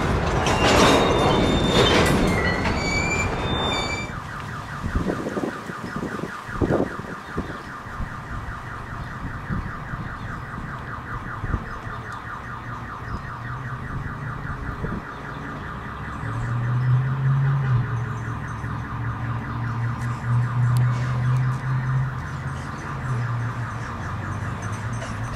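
Train wheels squealing against the rails for the first few seconds. Then a fast, evenly repeating electronic ringing, typical of a railroad grade-crossing bell, carries on to the end. A low steady drone joins about two-thirds of the way through.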